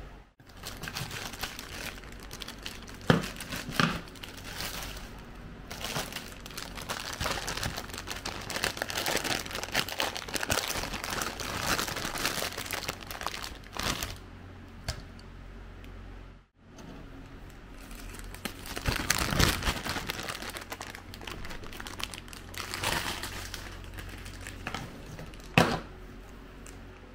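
Packaging being handled: crinkling and rustling in irregular bursts, with a few sharp knocks, over a faint steady hum.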